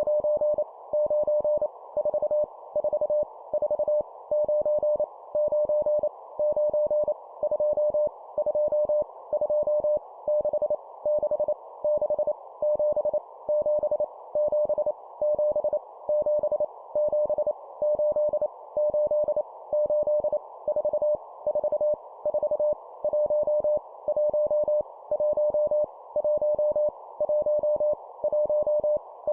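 Morse code sent at 25 words per minute as practice copy of random numbers: a single steady mid-pitched tone keyed on and off in quick dots and dashes, in groups separated by short pauses, over a soft band of hiss.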